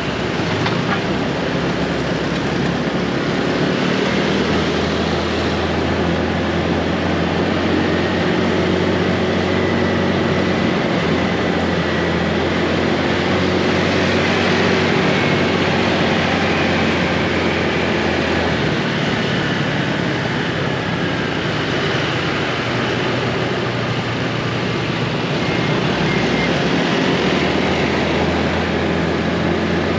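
Motorbike riding in dense city traffic: the steady low hum of the bike's engine among other motorbikes, with road and wind noise. The engine note eases off for several seconds past the middle.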